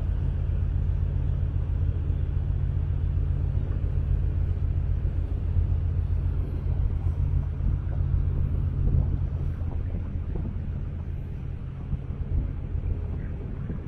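Gozo Channel Line car ferry's engines giving a steady low droning hum, heard from the deck over a constant rush of noise. It eases off slightly after about ten seconds.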